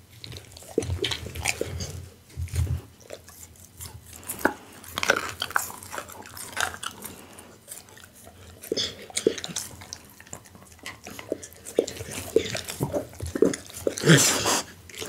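Pit bull biting and chewing a piece of raw beef tail held out by hand, close to the microphone: a run of wet mouth clicks and smacks, loudest near the end.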